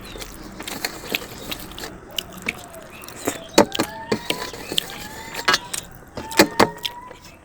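Eating sounds: sharp clicks and crunches of chewing and handling food, loudest a few times in the second half, with birds chirping in the background.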